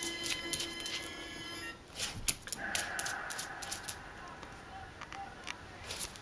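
A klein spitz's claws clicking and tapping on a tiled floor as it paws repeatedly at a bug: a run of sharp, irregular clicks.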